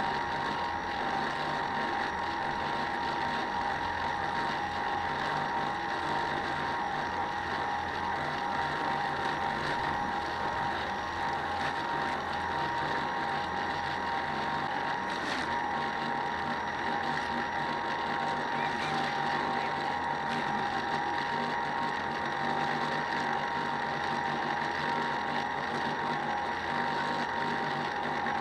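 Model boat's motor and gearing running with a steady whine and a fine mechanical rattle, holding an even pitch throughout.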